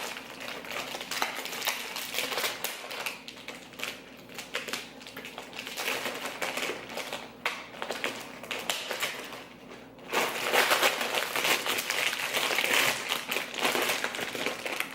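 Crinkling and rustling of a snack package being opened and handled: a run of small crackles that gets louder about ten seconds in.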